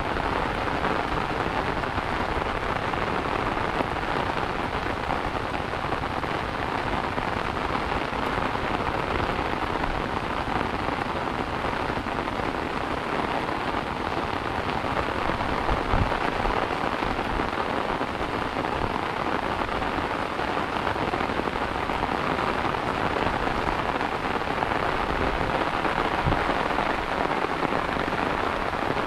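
Steady rain falling on an umbrella overhead and on the wet grass and ponds around it, an even, unbroken hiss. Two brief low thumps stand out, one about halfway through and one near the end.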